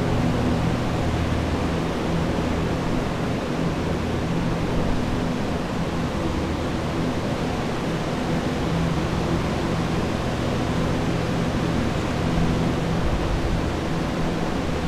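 Several carpet air movers and a commercial dehumidifier running together, drying out a flood-soaked classroom: a steady rush of blown air under a low motor hum that comes and goes.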